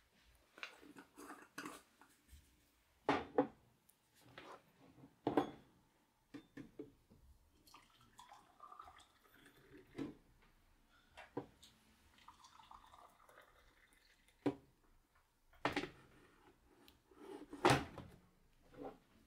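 Kitchen sounds of instant coffee being made: scattered clinks and knocks of mugs and a spoon, with water poured twice, each pour lasting a second or two.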